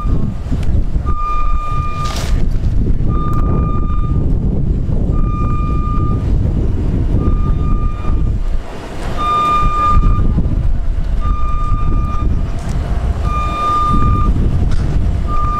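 A vehicle's reversing alarm beeping, one high beep about every two seconds, over the steady low rumble of an engine running.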